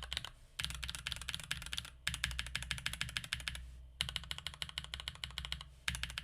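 Fast typing on a mechanical keyboard with Tecsee Carrot linear switches lubed with Krytox 205g0, in an RK68 board with tape mod and modded stabilizers. The keystrokes come in rapid bursts of a second or two, broken by brief pauses.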